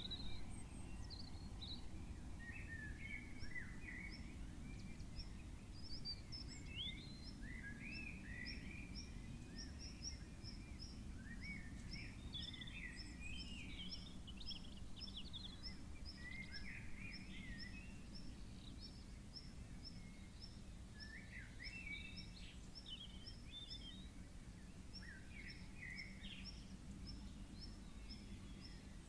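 Birds chirping and warbling in scattered bursts, with a steady string of short high chirps about twice a second joining in after the first several seconds, over a low steady background rumble.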